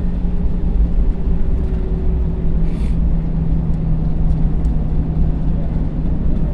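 Steady low rumble and hum inside an Airbus A321 cabin after landing, with the CFM56 engines at idle for the taxi to the gate. A brief hiss comes about two and a half seconds in.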